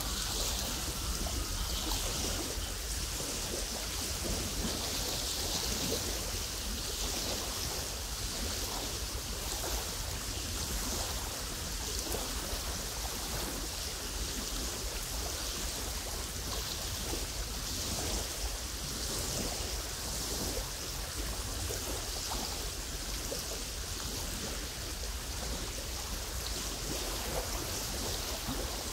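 Wind on a lake shore: small waves lapping and trickling on a gravel beach under a steady hiss of wind that swells and fades every few seconds, with a low rumble of wind on the microphone.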